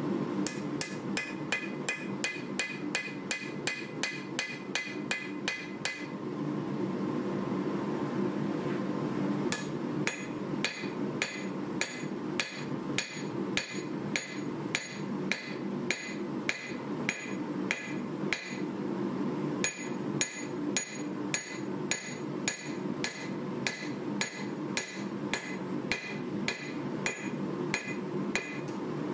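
Hand hammer forging a hot 1095 steel knife blade on an anvil: even ringing blows at about three a second, with a break of a few seconds about a fifth of the way in before the hammering resumes. A steady low hum runs underneath.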